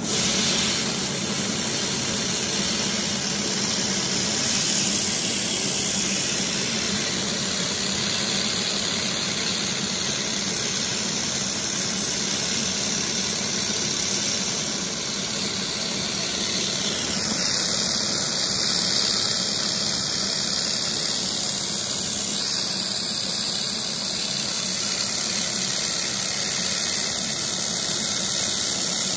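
A 3 kW handheld fiber laser welder with wire feed welding steel: a steady high-pitched hiss from the weld, over a faint low hum.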